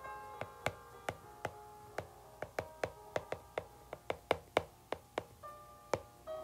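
Stylus tip tapping on a tablet's glass screen while letters are handwritten: sharp, irregular clicks, about three a second and busiest in the middle. Faint background music plays underneath.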